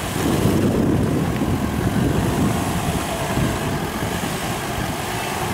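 Volkswagen Touareg SUV crawling slowly over loose rock and gravel: a steady low engine rumble with the noise of tyres rolling on stones.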